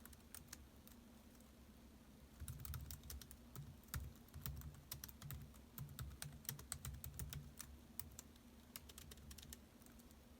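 Typing on a laptop keyboard: quick runs of light key clicks broken by short pauses, with a long run in the middle and only a few scattered keystrokes near the end.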